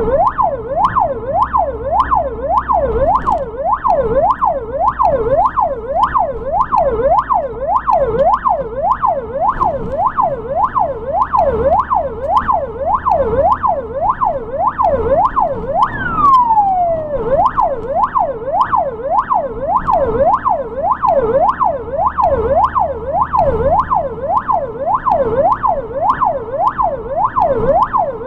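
Ambulance siren wailing rapidly up and down, about three sweeps every two seconds, with one longer falling glide about sixteen seconds in before the sweeps resume. A low vehicle rumble runs underneath.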